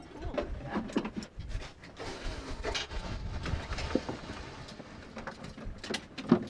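Irregular knocks and clinks of a brass sediment sieve being handled over a metal pail, over a steady low rumble. One sharp knock near the end is the loudest.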